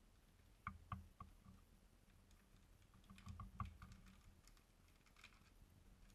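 Faint clicks and crinkles of a clear plastic zip-lock bag being handled while a black plastic GoPro pivot-arm mount with thumbscrews is worked out of it: a few separate clicks about a second in, a cluster between three and four seconds, and more near five seconds.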